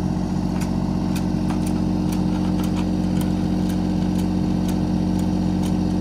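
Kubota U35-4 mini excavator's diesel engine idling steadily, with faint light clicks about twice a second.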